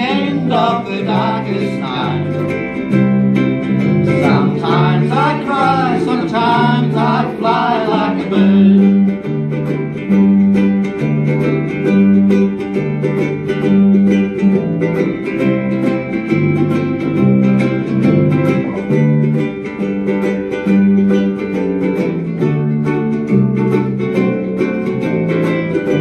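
Ukuleles strummed in a steady rhythm over a low bass line, with a voice singing for about the first eight seconds before the playing carries on as an instrumental passage.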